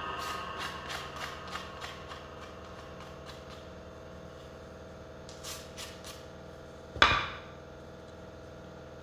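Small pine boards being picked up and set down on a wooden workbench: light knocks and clicks of wood on wood, with one louder thump about seven seconds in, over a faint steady hum.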